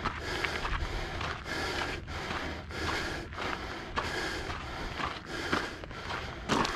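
A hiker on the move: a rhythmic noise about twice a second, keeping an even pace throughout, over a steady low rumble.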